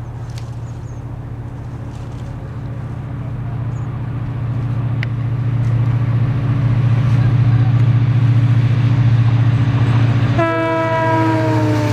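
A train approaching, its deep engine drone growing steadily louder, then its horn sounding about ten seconds in, the chord of several tones sliding down in pitch as the train passes.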